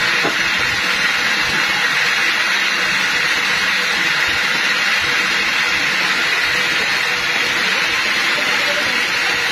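Sawmill machinery running steadily with nothing being cut, an even hiss with a faint low hum under it.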